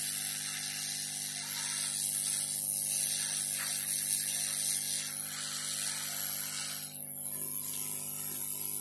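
Hot-air rework gun blowing a steady hiss of hot air onto a motherboard to dry-heat it, cutting off about seven seconds in.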